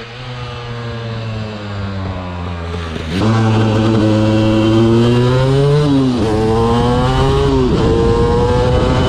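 A 2005 KTM 250 EXC single-cylinder two-stroke engine under way. It runs off the throttle with its pitch slowly falling, then the throttle opens about three seconds in and it accelerates hard, the pitch climbing with two sharp drops like upshifts.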